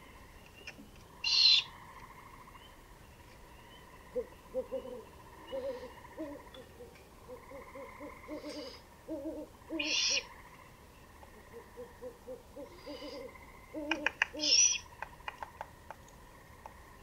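Great horned owl hooting: a long series of short, soft, low hoots from about four seconds in to near the end. Several brief, louder harsh bursts come in between, and a quick run of sharp clicks follows near the end.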